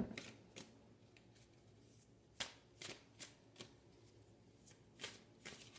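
Oracle deck being shuffled by hand: about nine short, faint card snaps and slaps scattered through, with quiet between.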